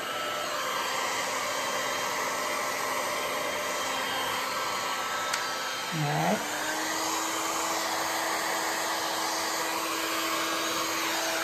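An 1800-watt handheld heat gun blows a steady rush of hot air over freshly poured epoxy resin to pop its tiny surface bubbles. About halfway through, a brief swooping tone sounds, and after it a faint steady hum sits under the rush.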